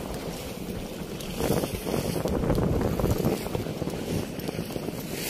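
Rushing water at a weir's sluice gate, with wind buffeting the microphone; the water noise swells louder for about two seconds, starting roughly a second and a half in.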